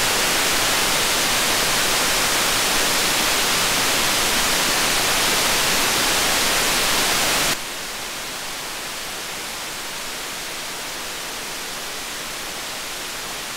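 Steady hiss of a TL062 JFET-input op amp's amplified noise in a test circuit, a very noisy part not recommended for audio. It drops suddenly to a softer level about seven and a half seconds in and carries on steadily.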